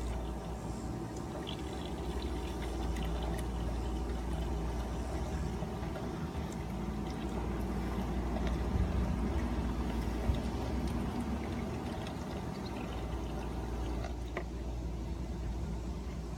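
Cider pouring steadily from a bottle through a funnel into a growler, with a few faint clicks.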